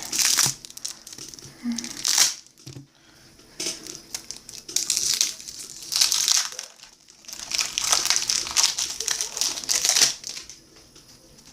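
Baseball card pack wrapper crinkling in bursts as the pack is handled and torn open, with several separate rustles.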